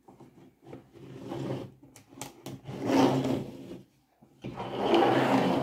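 Cardboard card and plastic toy pieces being handled and slid across a tabletop: rubbing and scraping in several bursts, loudest about three seconds in and near the end.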